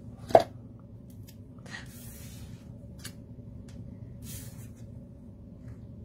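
A sharp tap on the tabletop, then soft rustles and small ticks as paper die-cuts and a bit of tape are handled, over a steady low hum.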